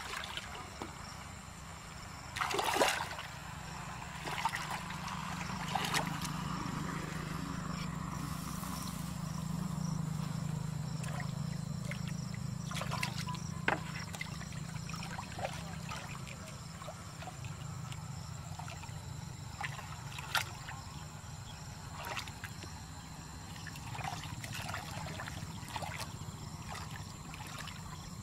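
Hands splashing and groping in shallow muddy water, with sloshing and dribbling and a few sharper splashes, the strongest about three seconds in. A low steady hum runs underneath.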